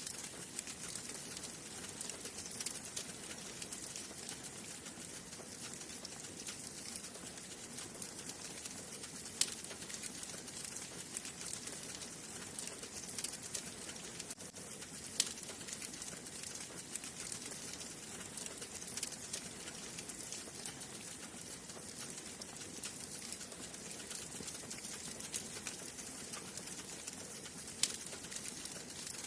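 Wood fire in a fireplace crackling, a steady hiss and many small ticks. Three louder sharp pops are spread through it, the last near the end.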